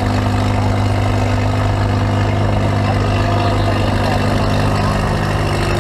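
Engine running at a steady idle: a constant low hum that neither rises nor falls.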